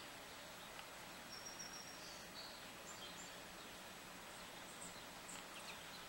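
Faint, short high chirps and call notes of small songbirds over a steady hiss, scattered through the middle and again near the end.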